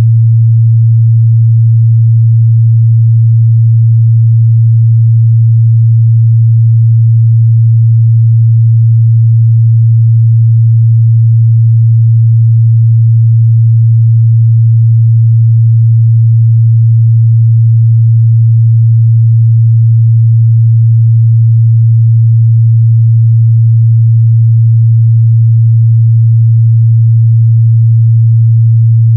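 A steady, loud 114 Hz sine-wave test tone: one low pure hum held at a constant pitch and level, used to check the mid-bass response of speakers and headphones.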